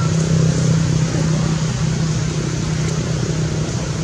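A steady motor-engine drone: a constant low hum under an even hiss, unchanging throughout.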